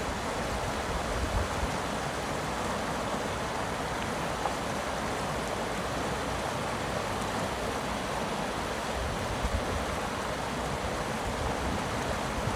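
Steady rushing of running water, as from a mountain stream or cascade, with no breaks.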